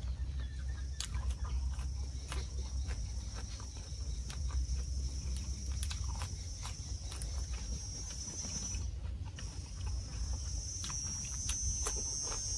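Close-up eating sounds: chewing, lip smacks and crisp little clicks as boiled tiger prawns and leafy greens are eaten by hand. Underneath, insects buzz steadily at a high pitch, dropping out briefly about nine seconds in, over a low rumble.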